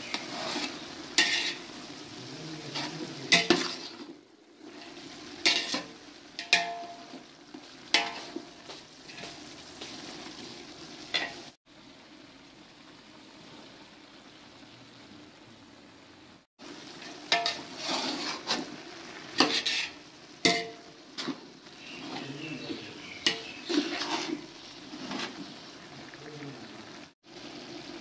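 Meat, potatoes, cabbage and capsicum sizzling as they fry in a large metal cooking pot, while a metal spatula scrapes and knocks against the pot's sides as the mix is stirred. The sizzle drops to a quieter hiss for about five seconds in the middle, with no stirring strokes.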